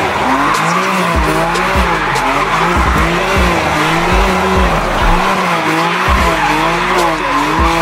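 A BMW M2 Competition's twin-turbo straight-six revving up and down, rising and falling about once a second, while the rear tyres squeal and skid in a smoky donut. Regular low bass thumps run underneath.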